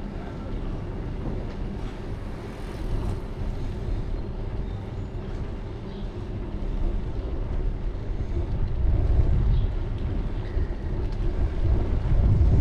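Low, fluctuating rumble of a bicycle ride picked up by a GoPro: wind buffeting the microphone and tyres rolling over asphalt. It gets louder about two-thirds of the way through and again near the end.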